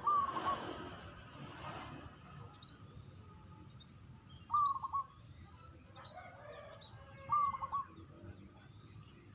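Zebra dove (perkutut) cooing: three short calls, one at the start, one about four and a half seconds in and one about seven seconds in. Faint high chirps of small birds are heard between the calls.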